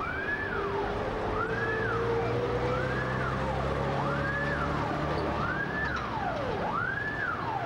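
A siren wailing, each cycle a quick rise in pitch and a slower slide back down, repeating a little more than once a second. A low rumble sits under it for the first several seconds.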